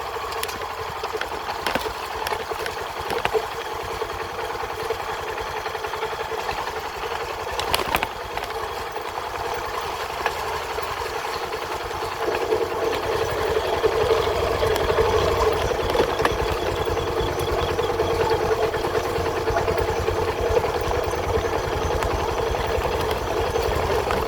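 Small engine running steadily as it travels up a steep dirt track, getting louder from about twelve seconds in.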